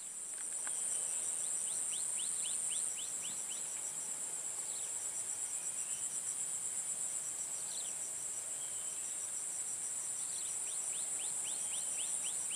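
Steady high-pitched insect chorus, with a second insect pulsing rapidly beneath it. Two runs of quick falling chirps break in, one a second or two in and another near the end.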